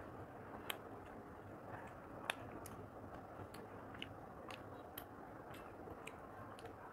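Close-miked chewing of a mouthful of rice and chicken: soft, irregular wet mouth clicks and lip smacks, the sharpest a little over two seconds in, over a steady low background hiss.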